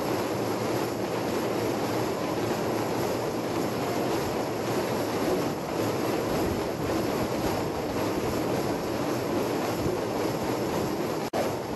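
Thousands of hand drums played together, merging into a dense, continuous wash of drumming. It breaks off for an instant near the end.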